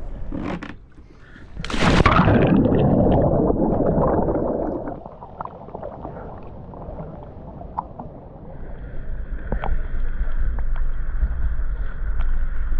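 Sea water gurgling and sloshing around a camera dipped at the surface, with a loud splash about two seconds in. Near the end a steady low rumble with a thin whine above it sets in, as from the boat's motor.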